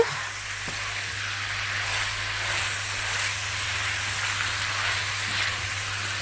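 Cut sausage pieces sizzling steadily in a hot wok as they are sautéed and stirred with a spatula, browning in their own fat before any vegetables are added.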